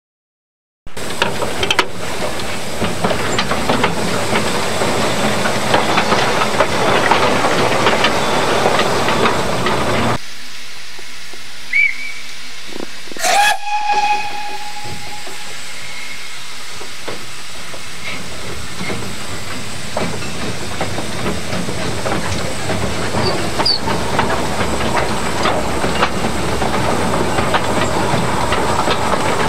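Fowler tank steam locomotive heard from its cab, with a steady hiss of steam and running noise. The noise drops off sharply about a third of the way in, then builds back. Near the middle the locomotive's whistle gives one short blast.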